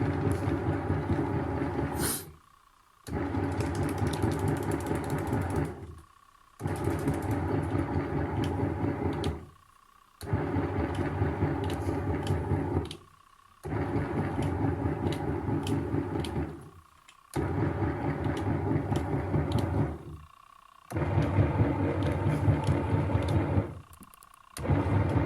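Bucket-type washing machine's motor running its wash cycle: it runs for about three seconds, stops for under a second, and starts again, over and over, with a faint steady whine.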